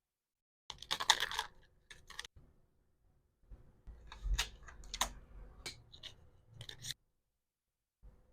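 Hands handling packaging: a burst of crinkling a little under a second in, a few sharp clicks, then a longer run of crinkling, rustling and small clicks and taps, with silent gaps between.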